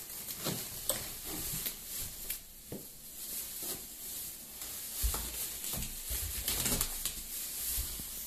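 Plastic wrap crinkling and rustling around a gaming chair's backrest as it is handled and lifted out of a cardboard box, with a few dull bumps in the second half.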